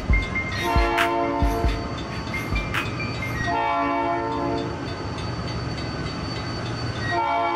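Train horn sounding three long blasts over a low rumble, as a sound effect closing the track. A few bass thumps from the hip-hop beat come in the first couple of seconds.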